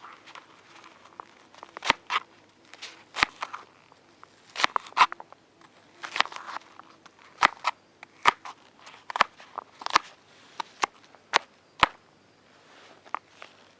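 Dry wood snapping and cracking in sharp, irregular cracks, roughly one a second.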